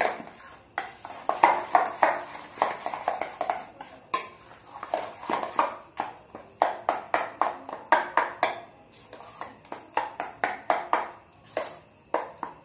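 Metal spoon beating soft milk cream in a stainless steel bowl: rhythmic scraping and clinking of spoon on steel, pausing briefly about four seconds in and near the end. This is the whipping stage of making homemade butter from cream.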